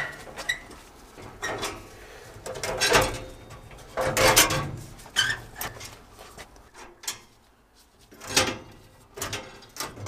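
Irregular knocks, clicks and scrapes of tools and metal boiler parts being handled, with a dozen or so separate bumps and short sliding sounds and quieter gaps between them.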